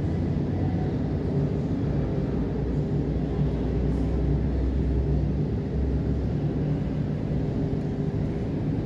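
Steady low rumble of jet aircraft and ground equipment on an airport apron, with a low droning hum.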